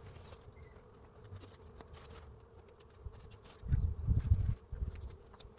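Honeybees buzzing around the hive, a faint steady hum, over the sticky crackle of painter's tape being pulled off the roll and pressed along the hive's base. A loud low rumble about four seconds in.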